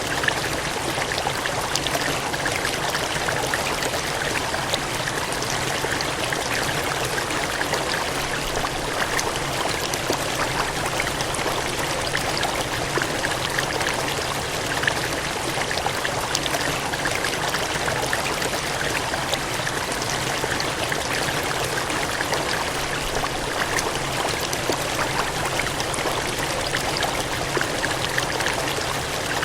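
Water gushing and cascading, a steady, unbroken rushing noise with faint small splashes scattered through it.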